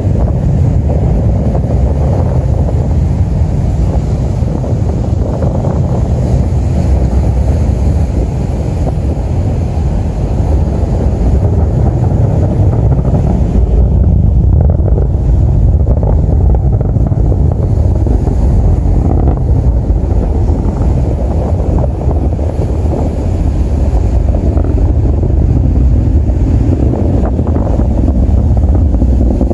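Atlas V rocket's RD-180 first-stage engine heard from miles away during ascent: a loud, steady, deep rumble, mixed with wind on the microphone.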